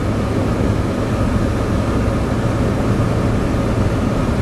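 Steady in-cabin driving noise of a Jeep Wrangler Sahara on the highway: engine and road noise with a constant low hum.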